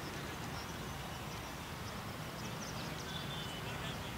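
Open-air ambience: a steady low background rumble with faint, short high bird chirps scattered through it.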